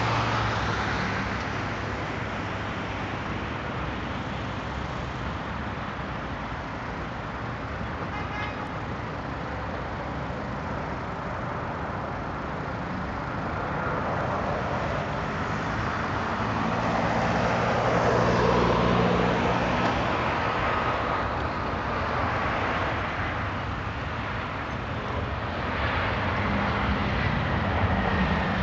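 Boeing 737-800's CFM56 turbofan engines on approach and landing: a steady jet rush that swells about two-thirds through with a faint falling whine as the aircraft passes, then rises again near the end as it rolls out on the runway without reverse thrust.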